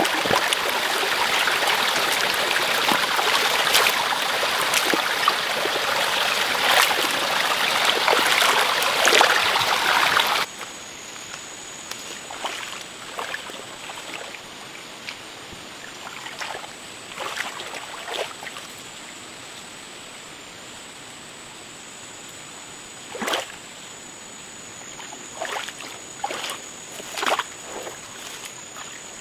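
Running water for about ten seconds, then a sudden cut to a much quieter scene with scattered light knocks and scrapes over a steady high-pitched tone.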